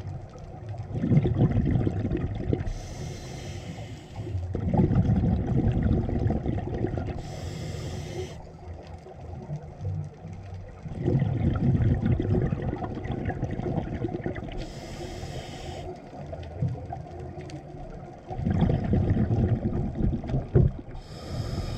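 Scuba diver breathing through a regulator underwater: about four breaths, each a long low bubbling as the breath is exhaled and a short sharp hiss as air is drawn in.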